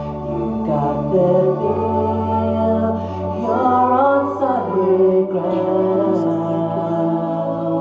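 A young girl singing a Christmas song into a microphone, with held notes that glide between pitches, over steady low accompaniment notes that change every few seconds.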